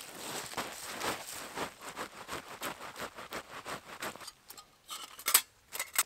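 Dry fallen leaves rustling as they are scraped aside by hand in quick strokes, about four or five a second. Near the end come a few sharp knocks, the loudest about five seconds in.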